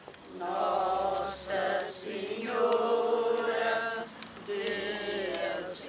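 A group of people singing a religious hymn together in unison, in three slow, held phrases with short breaks between them.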